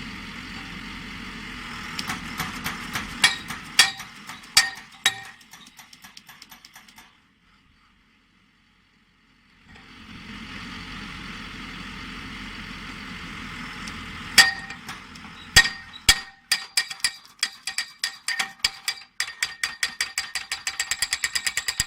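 Pile driver's hammer striking a steel pile over a running engine, each blow ringing metallically. It opens with a few heavy, spaced blows that break into a quick run, drops to near silence for about two seconds midway, then starts again with single heavy blows that build into a rapid, even hammering of several strikes a second.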